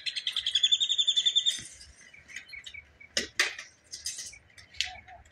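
A small bird's rapid trill, about a dozen notes a second, lasting about a second and a half, followed by a few short scattered chirps.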